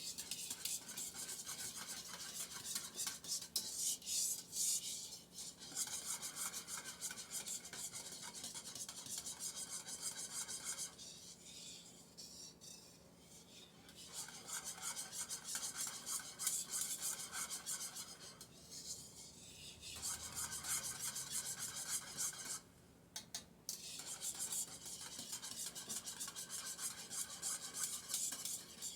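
A utensil stirring sauce in a pot with rapid, continuous scraping strokes against the pot, pausing briefly a few times.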